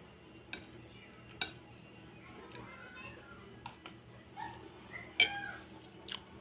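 A spoon clinking against a dinner plate: about five sharp, separate clinks, the loudest about five seconds in.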